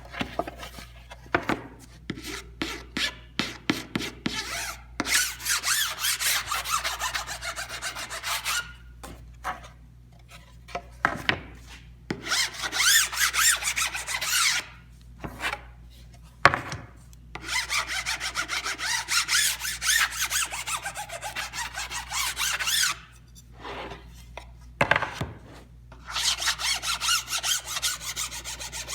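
Hand file scraping along the edge banding of a wooden drawer side to trim it flush: runs of quick, raspy strokes with short pauses between them.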